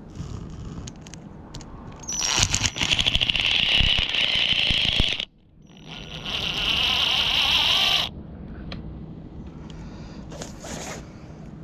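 Power drill running in two bursts, about three seconds and then about two seconds, with a short break between; the second starts with the motor speeding up. It is working on the fixing of a scooter's steel handle to take it off.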